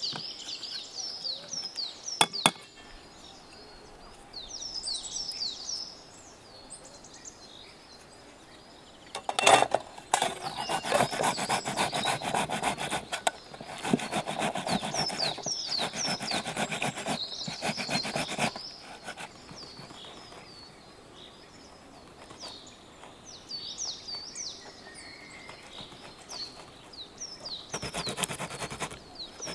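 Tomatoes rubbed on a small metal hand grater into a steel bowl: rapid rasping strokes in long runs, after a short run of garlic being grated at the start. Birds chirp throughout.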